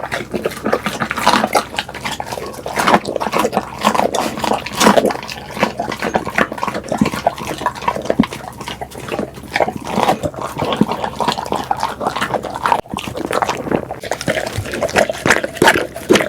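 Pitbull eating noisily close to the microphone: a dense, irregular run of chewing clicks and mouth smacks.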